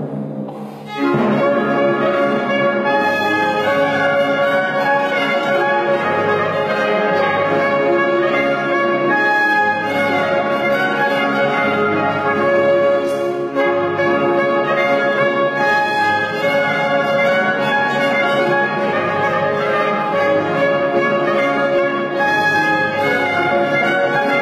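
Chamber ensemble of trombone, trumpet and strings playing together, the full ensemble coming in about a second in.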